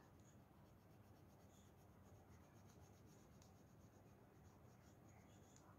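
Faint, rapid back-and-forth scratching of colour being stroked onto paper to fill in an area.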